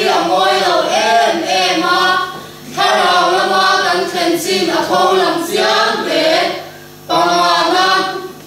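A mixed group of men's and women's voices reciting together in a chanted, choir-like unison, in phrases broken by short pauses about a third of the way in and near the end.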